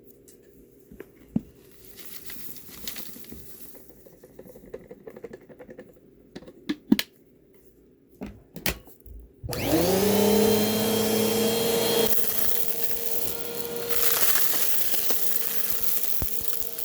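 Bissell vacuum cleaner sitting off while it is handled, with a few sharp clicks and knocks. About nine and a half seconds in, its motor switches on: the whine rises quickly to a steady pitch and the vacuum keeps running loudly, its brushroll noise shifting a little.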